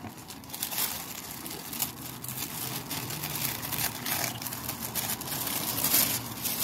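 White tissue paper rustling and crinkling as hands break its sticker seal and fold it back, in irregular crackles that get a little louder near the end.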